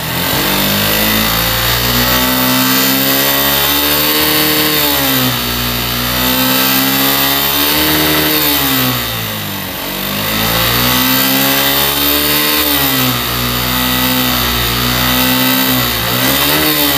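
Suzuki Gixxer SF's single-cylinder engine being revved up and let back down over and over, the pitch dipping and climbing again about four times. The engine has a noise fault: the owner hears it change to a knocking above about 75–80 km/h.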